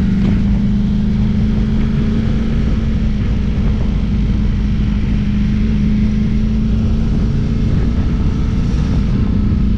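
Ducati Multistrada V4 S's V4 engine running steadily through its exhaust: a loud, even drone that holds without revving.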